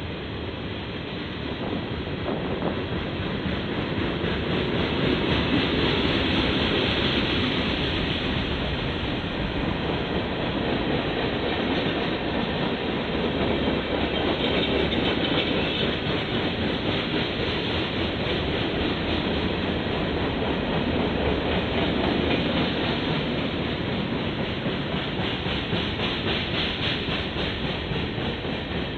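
Freight train cars (boxcars, tank cars and covered hoppers) rolling past: a steady rumble with the rapid clickety-clack and rattle of steel wheels on the rails, growing louder a few seconds in and then holding steady.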